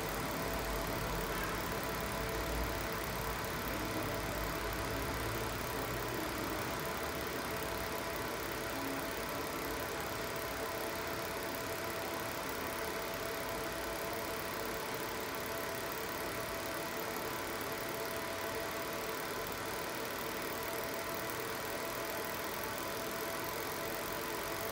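A 30 W fiber laser marking machine running steadily through a marking job: an even mechanical hum with a few steady tones.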